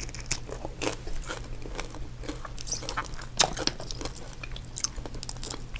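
Close-up eating sounds of seafood boil: irregular wet chewing, biting and small crunches and clicks.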